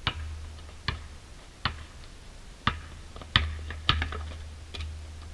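A basketball bouncing on an asphalt street during one-on-one play: about seven sharp thuds at uneven intervals, over a low steady rumble.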